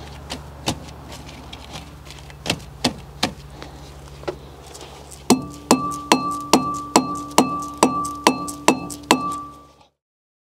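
A hammer striking the MG ZR's cast-iron front brake disc on the hub. It starts with a few scattered taps, then comes a run of about eleven steady blows, roughly two and a half a second, each leaving the disc ringing with a metallic tone, and the sound fades out near the end.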